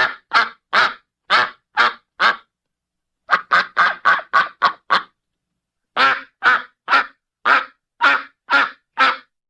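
A duck quacking in three rapid bouts of short, evenly spaced quacks, the middle bout faster than the others, with a laugh-like rhythm.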